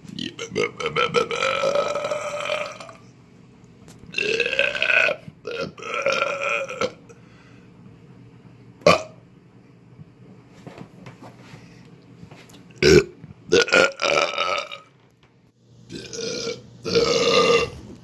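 A man belching over and over: about seven burps with short pauses between them, some drawn out for a second or more, a couple very short.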